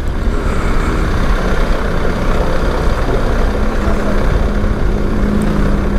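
BMW R1300 GS Adventure's boxer-twin engine running at low speed in second gear, under a dense wash of wind and road noise. A steady engine hum comes through from about halfway.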